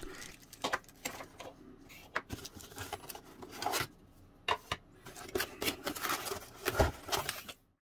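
Cardboard packaging and plastic bags being handled as items are lifted out of a box: irregular scrapes, taps and rustles of cardboard, cutting off suddenly near the end.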